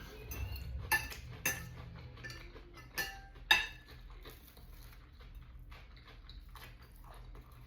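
Cutlery clinking against a plate during a meal: two pairs of sharp clinks, each pair half a second apart, with lighter scrapes and taps between.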